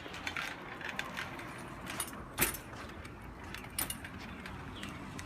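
BMX bike clattering as it is moved about: scattered light metallic clicks and rattles, with one sharper knock about two and a half seconds in.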